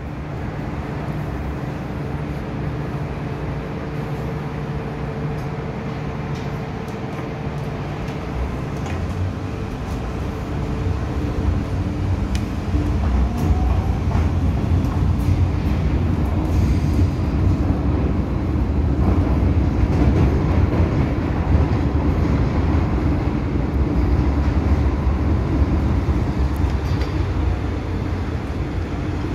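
MTR M-Train heard from inside the passenger car as it pulls away and runs into the tunnel: a steady hum of traction equipment over the noise of wheels on rails. It grows louder from about ten seconds in as the train gathers speed, then holds loud.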